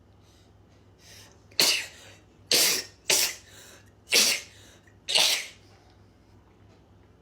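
A young woman sneezing five times in quick succession, roughly a second apart, during a sneezing fit.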